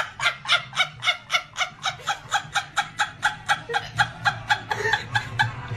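A woman laughing in a rapid, unbroken run of short high-pitched "ha" bursts, about four a second.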